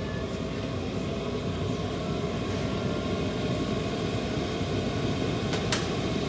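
Enclosed diesel heater running at full output, its fan and burner making a steady rushing noise. Two sharp clicks come a little after five and a half seconds in.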